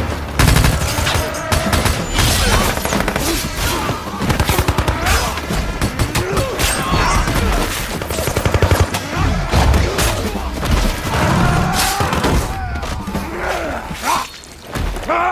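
Rapid bursts of gunfire mixed with music, sharp shots coming thick and fast in several runs.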